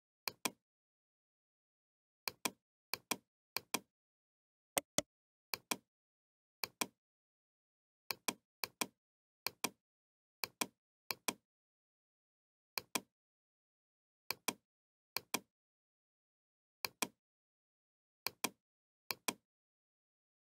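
Computer mouse button clicking: each click is a press and release a fraction of a second apart, repeated irregularly every second or so, with dead silence between.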